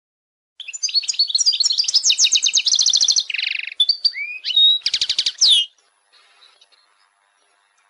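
European goldfinch singing: a fast run of twittering notes and trills that begins about half a second in, with a few slurred notes and a final quick trill, then stops about two seconds before the end.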